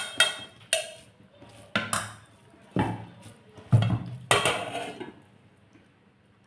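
Tableware clinking during a meal: about six sharp knocks of utensils against a plate over the first five seconds, then quiet.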